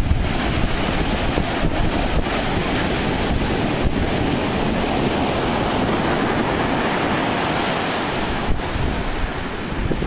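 Storm-driven surf breaking and washing up onto the sand in a steady rushing, with wind buffeting the microphone.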